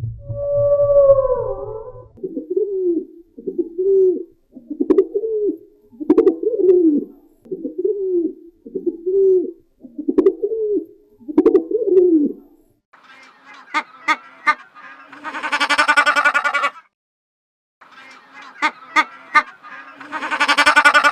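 Pigeon cooing: about nine short coos, each rising and falling, roughly a second apart. Then a sheep bleats twice, each bleat preceded by rustling and clicks.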